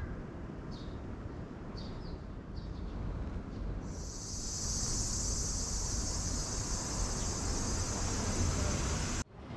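Cicadas droning in a steady, high-pitched chorus that swells in about four seconds in and cuts off suddenly near the end, over a low outdoor rumble. Before the chorus comes in there are a few short, high chirps.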